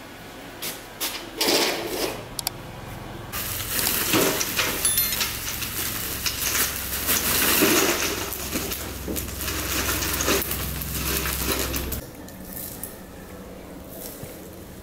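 Loose material poured from a woven sack into a rusty metal bucket: a few knocks as the bucket is handled, then a steady rattling, rushing pour of many small pieces against metal for about eight seconds, stopping suddenly.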